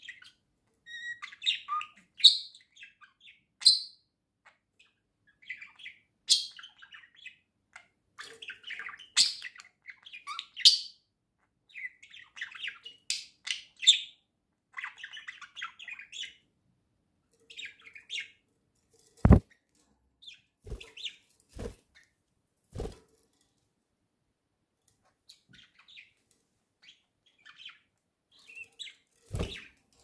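Pet budgerigars chattering and chirping in quick, high bursts, busiest in the first half. Further on the chirps thin out, and a few sharp knocks come in between them.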